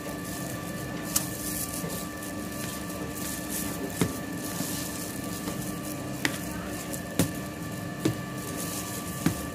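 Spoon stirring thick semolina halwa in a microwave bowl, the soft scraping broken by about six sharp knocks of the spoon against the bowl. Under it runs a steady electrical hum.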